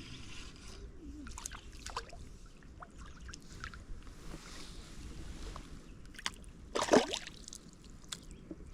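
Creek water trickling and sloshing, with scattered small clicks and splashes and one louder splash about seven seconds in.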